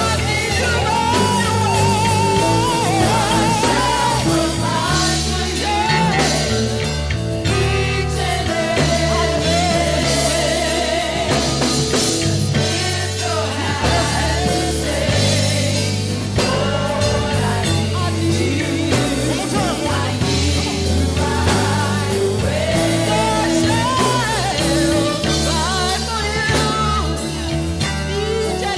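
Gospel song: a singer's voice wavering with vibrato over a steady band with bass and drums.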